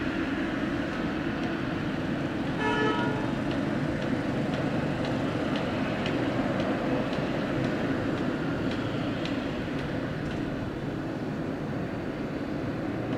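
Boeing 787-9's jet engines at taxi power: a steady, even rumble, with a brief horn-like tone about three seconds in.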